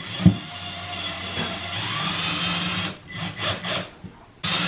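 Power drill running for about three seconds, its pitch rising partway through, then several short bursts.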